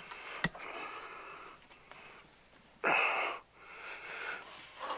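A man breathing heavily and wheezily close to the microphone as he strains at the work, with one loud exhale about three seconds in. A single sharp click sounds about half a second in.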